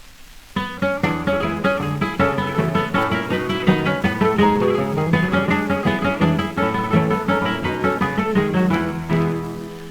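Guitar introduction of an Argentine ranchera from an early Victor 78 rpm record: plucked and strummed guitars in a steady dance rhythm, starting about half a second in after a little record surface hiss.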